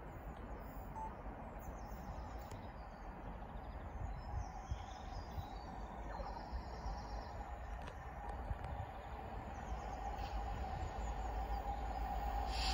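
Birds chirping over a steady low outdoor rumble. A faint hum grows louder near the end as a train hauled by a GBRf Class 66 diesel locomotive approaches from a distance.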